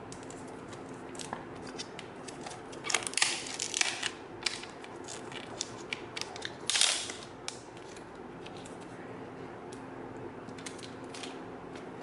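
Thin clear plastic protective film crinkling and crackling as fingers handle and peel it from the aluminium back of an iPad, with scattered small crackles and two louder bursts about three and seven seconds in.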